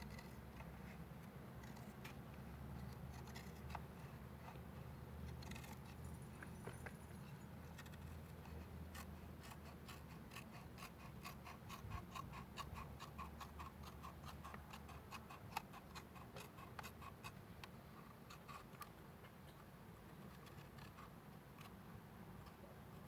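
Scissors snipping off excess cloth electrical tape: a long run of faint, quick clicks through the middle.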